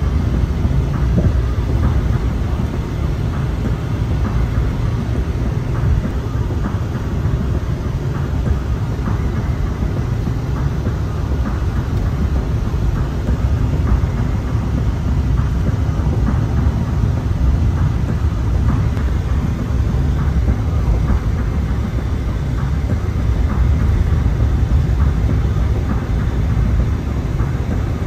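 Steady low rumble of a car driving at highway speed, tyre and engine noise heard from inside the cabin.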